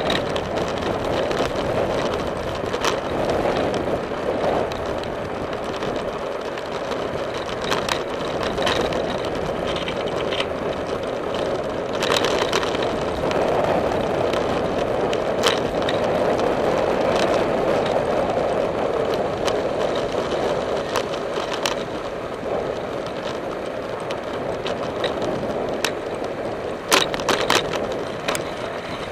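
Riding a bicycle on a paved trail: a steady rush of wind and tyre noise on the microphone, with sharp clicks and rattles scattered through it and a cluster of them near the end.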